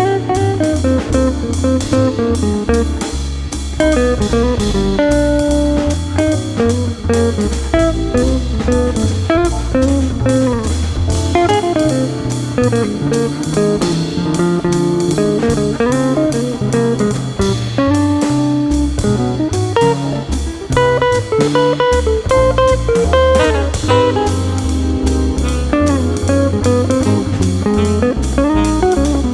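Background music: an instrumental break in a blues-style song, a guitar lead with bending notes over bass and a steady drum beat.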